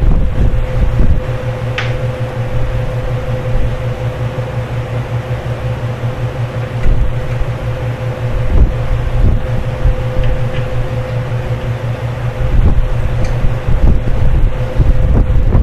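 Steady hum of a running electric fan: a constant whine over a low rumble, with a few faint taps.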